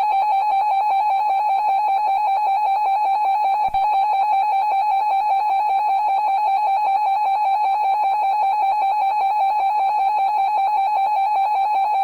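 Emergency Alert System attention signal: a loud, steady two-tone alert tone, announcing the flash flood watch that follows. It drops out for an instant a little under four seconds in.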